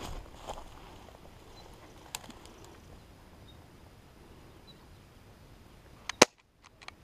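A sharp airsoft pistol shot near the end, with a smaller crack just before it, after several quiet seconds holding only a faint rustle and a light click.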